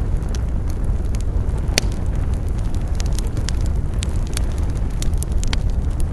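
Wood campfire crackling: irregular sharp pops and snaps over a steady low rumble, with one louder pop about two seconds in.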